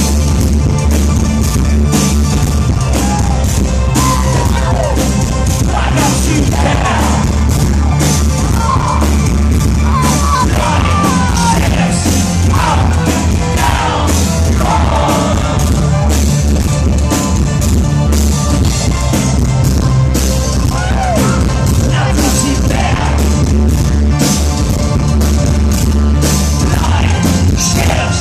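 Industrial band playing live and loud through a concert PA: a steady drum beat, heavy bass and synths, with a singer's vocals sliding in pitch over them for much of the time.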